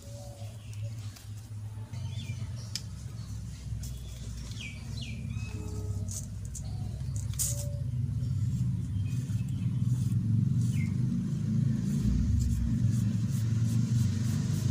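Steady low rumble of outdoor background noise that slowly grows louder, with a few short bird chirps and faint scattered clicks.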